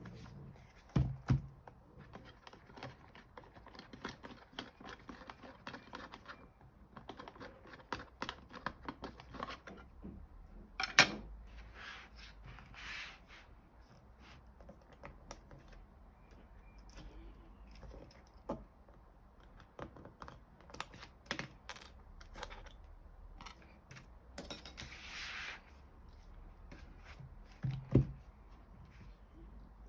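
Quick small clicks and taps from handling a handheld scan tool's plastic case while it is taken apart for a battery change, with sharp knocks about a second in, near the middle and near the end, and two short scraping sounds.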